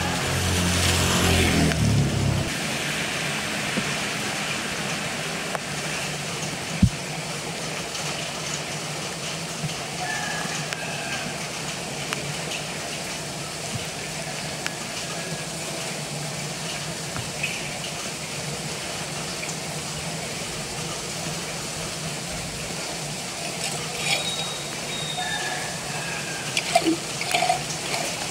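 Rainwater rushing steadily through a clogged street curb-inlet grate as it is cleared. A vehicle engine passes in the first two seconds. There is a single sharp knock about seven seconds in, and near the end come scattered splashes and scrapes of a hand rake working debris out of the grate.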